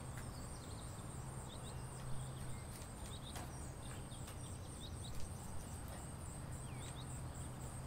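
Insects, likely crickets, trilling steadily in a fast, high-pitched pulse, with short bird chirps here and there and a few faint clicks as the cutting is worked into the soil tray.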